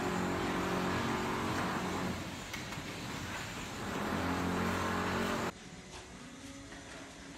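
An engine or motor running with a low hum, swelling twice. About five and a half seconds in it cuts off abruptly to a quieter, steady low hum.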